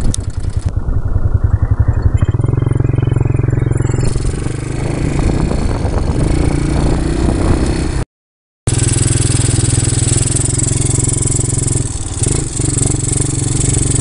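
Quad bike (ATV) engine idling with a quick pulsing beat, then running steadily as the quad moves off, with a steady hiss on top in the second half. The sound cuts out completely for about half a second around the middle.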